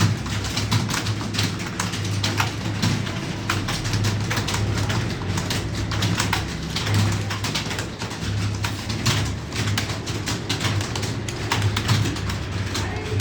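Computer keyboard keys clicking irregularly, several strokes a second, during a timed typing test, over a low steady hum.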